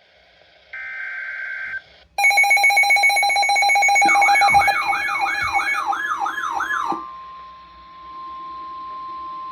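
Emergency Alert System warning signals: a one-second burst of digital SAME header data tones, then a loud, rapidly pulsing electronic alarm beep joined about halfway by a warbling siren that sweeps down about twice a second. About seven seconds in these stop, and NOAA Weather Radio's steady single-pitch 1050 Hz warning alarm tone begins.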